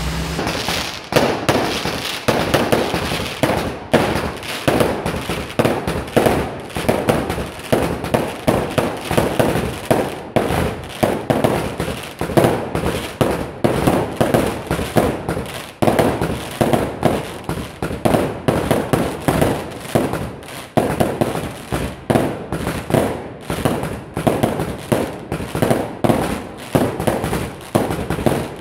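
Festival fireworks: a long, rapid barrage of firecracker bangs, several a second, with only brief lulls.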